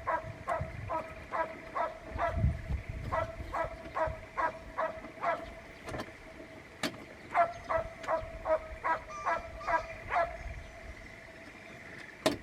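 A dog barking over and over at a steady pace, about two or three barks a second, pausing briefly near the middle and falling quiet shortly before the end, with a couple of sharp clicks between.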